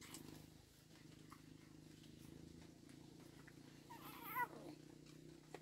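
A cat purring faintly and steadily, with one short, high, wavering call about four seconds in.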